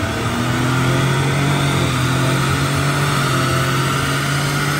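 Lincoln Navigator's twin-turbo V6 running in gear on a chassis dyno, its note stepping up a little just after the start and then holding a steady, moderate engine speed.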